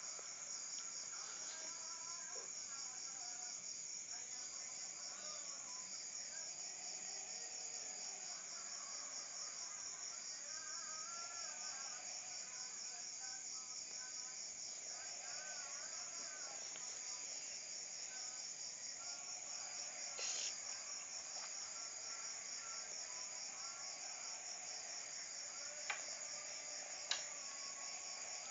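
Crickets chirping steadily in a high, fast, evenly pulsed trill, with fainter wavering calls beneath. There are a few sharp taps, one about two-thirds of the way through and two near the end.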